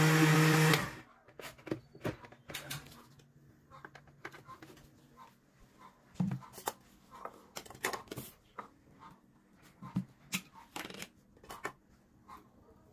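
A Fujika countertop blender running as it purées rice porridge, then cutting off under a second in. After it stops, scattered light clicks and knocks of kitchenware being handled.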